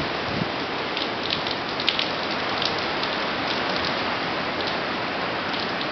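Steady hiss of heavy, wind-driven hurricane rain on pavement and plants, with scattered sharp patters of drops.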